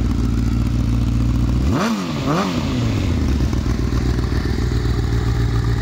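Honda CBR1000RR Fireblade's inline-four engine idling through a Pipe Werx aftermarket silencer, blipped twice in quick succession about two seconds in, the revs rising and falling straight back to idle.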